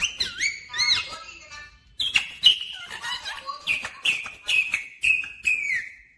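Indian ringneck parakeet calling: whistled notes gliding up and down for about the first second, then after a short break a string of short calls, each falling in pitch, stopping abruptly near the end.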